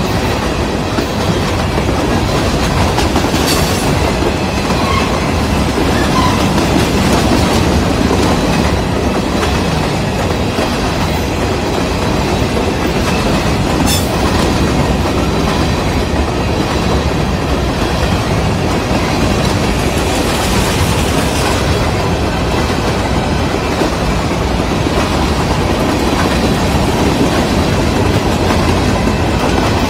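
Freight train of covered grain hopper cars passing fast and close: a steady loud rolling noise of steel wheels on rail, with two sharp clicks, one a few seconds in and one about halfway through.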